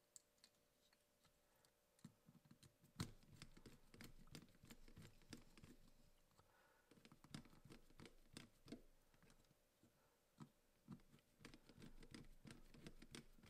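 Faint clicking and scraping of a screwdriver on control-transformer terminal screws as metal jumpers are fitted, starting about two seconds in; the sharpest click comes about three seconds in.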